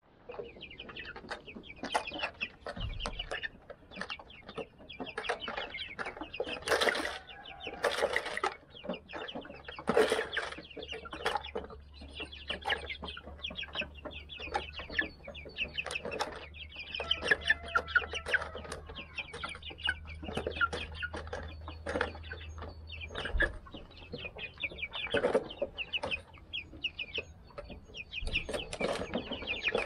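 A flock of 55-day-old Silver Laced Wyandotte chickens peeping and clucking continuously, with a few louder calls about a third of the way in.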